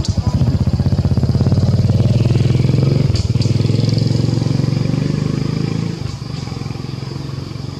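A nearby engine running steadily, loud at first and quieter from about six seconds in.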